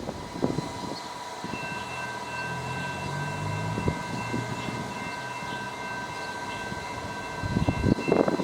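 Train passing, with a steady high tone and a quick, evenly repeating higher beeping over it. Louder rattling builds near the end.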